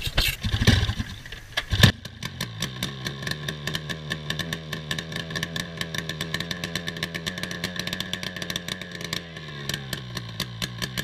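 Snowmobile engine firing in a few rough bursts, then catching about two seconds in and running at a steady, fast idle. It is being run to burn it out and is blowing heavy smoke.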